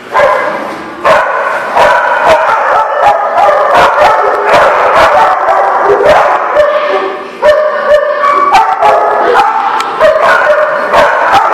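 Dogs barking and yipping in rough play: a near-continuous string of short, pitched barks and yips with sharp clicks mixed in.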